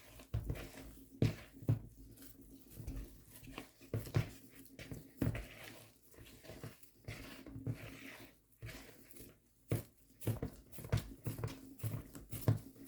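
Hands mixing and squeezing sticky bread dough in a bowl as the flour is worked in: irregular squishing with soft slaps and knocks.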